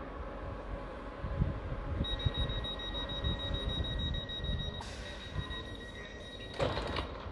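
Door warning alarm of a Class 365 electric train at the platform: a high, rapidly pulsing beep starting about two seconds in as the doors close. A hiss comes about five seconds in and a short loud burst of noise follows near the end as the alarm stops.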